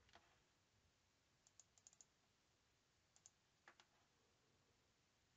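Near silence, broken by a handful of faint computer mouse clicks in small groups, the clearest a little past halfway.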